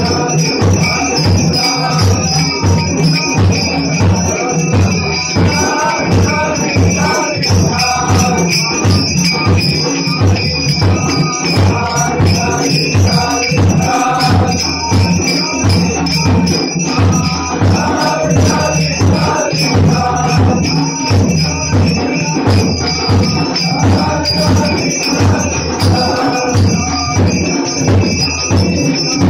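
A devotional aarti sung by a group of voices, with a drum keeping a steady beat and jingling metal percussion ringing along throughout.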